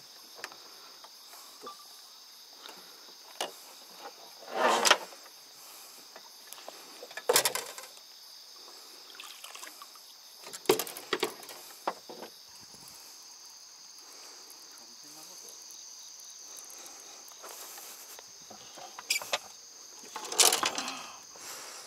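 A chorus of insects buzzing in a steady high drone, broken by a few short bursts of noise, the loudest near the end.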